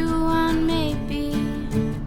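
Background music: a sung melody over acoustic guitar accompaniment.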